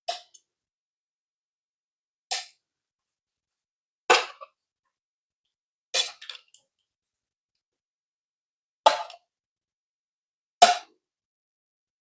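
Chicken wings being set down one at a time onto a plate, six short clatters about two seconds apart.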